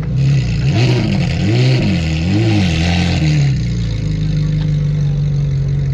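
A car engine revved three times in quick succession, the pitch rising and falling with each blip, then settling into a steady idle about three and a half seconds in.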